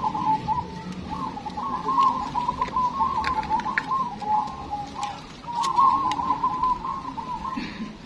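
Many caged zebra doves (perkutut) cooing at once, their overlapping rolling coos running on together, with a brief lull about five and a half seconds in.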